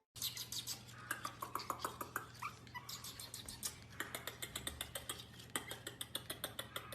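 Puppy giving a few short, high whimpers in the first couple of seconds, amid a fast, steady run of sharp clicks and taps.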